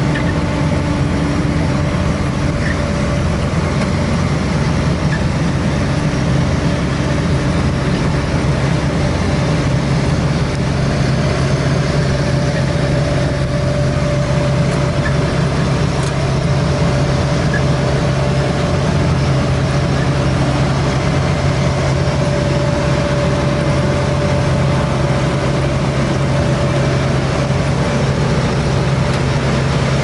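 AVR Puma 4.0 self-propelled potato harvester running steadily while lifting potatoes: its diesel engine drones at a constant pitch under the clatter of the lifting and sieving webs.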